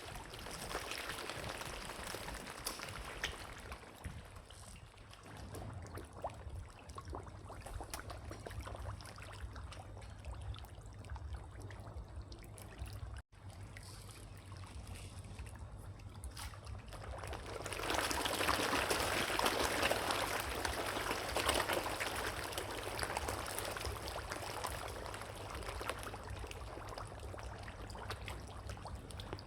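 Water trickling and splashing as an even rush dotted with small splashes. It cuts out for an instant about halfway through and grows louder for a few seconds past the middle.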